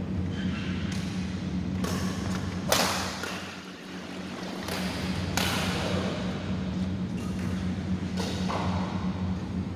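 Badminton rackets striking a shuttlecock during a rally, about half a dozen sharp hits spaced irregularly, each ringing out briefly in the hall. The loudest hit comes a little under three seconds in. A steady low hum runs underneath.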